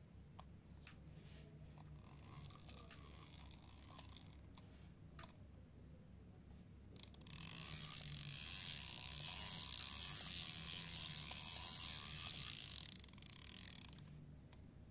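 Vintage Garcia Mitchell 300 spinning reel being cranked by hand, its gears and ratchet clicking and whirring. The sound is faint with scattered clicks at first, then a loud steady ratcheting whir from about seven seconds in that stops a little before the end.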